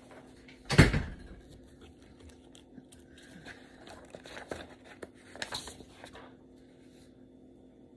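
A single thump about a second in, then faint rustling and light clicks of handling that die away near the end.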